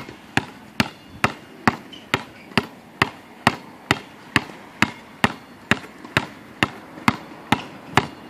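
Basketball being dribbled on an outdoor hard court: a steady rhythm of sharp bounces, a little over two a second.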